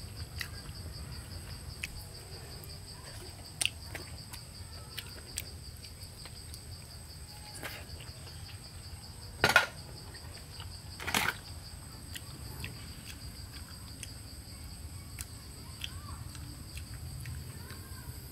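Steady high-pitched insect chorus of the forest, with small clicks and ticks of eating and handling food. Two louder knocks near the middle, as she reaches over to the pot and tongs.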